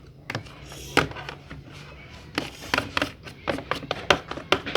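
Irregular clicks and knocks of a utensil against a bowl as glue-and-detergent slime is stirred, a dozen or so uneven strokes over a low steady hum.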